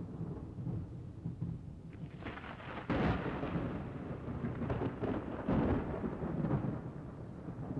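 Thunder rumbling, growing louder just before three seconds in and then rising and falling in swells.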